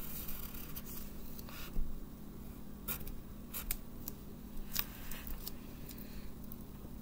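Pen tip scratching across paper as lines are drawn, with a few faint clicks and a steady low hum underneath.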